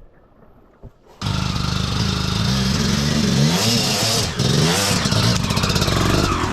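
Enduro motorcycle engine running close by, coming in abruptly about a second in, with its pitch rising and falling as the throttle is blipped.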